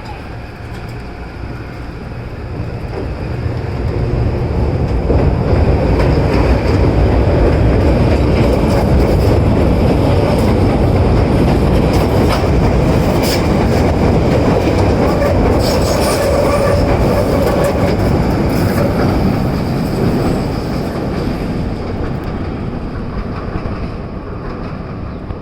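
CTA 'L' Blue Line train of Morrison-Knudsen 3200-series rail cars running past at the platform, growing louder over the first few seconds and fading near the end. Steel wheels clack over the rail joints, with some wheel squeal midway.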